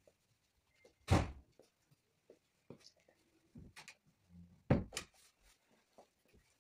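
A few scattered knocks and thumps, the loudest about a second in and another pair near five seconds, with faint small rustles between.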